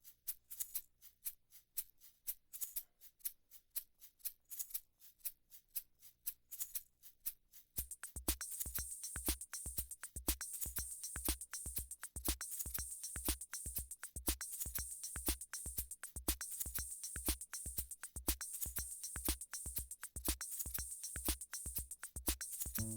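Background music with a steady shaker-like percussion beat. A low drum beat and a brighter high percussion layer join about eight seconds in.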